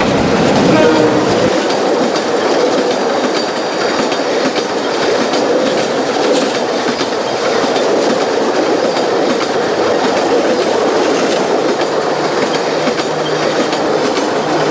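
A Bangladesh Railway intercity passenger train passes close by on the adjacent track. Its coaches' wheels clatter steadily over the rail joints in a continuous clickety-clack.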